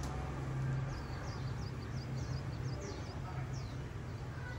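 Steady low hum of city traffic, with a small bird chirping a quick run of short, high, falling notes from about a second in until near the end.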